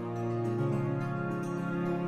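Background music: soft, sustained instrumental chords, shifting to a new chord about half a second in.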